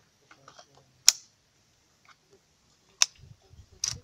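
Saiga-MK03 carbine being handled to make ready: sharp metal clacks, one about a second in and another about two seconds later, with lighter clicks around them.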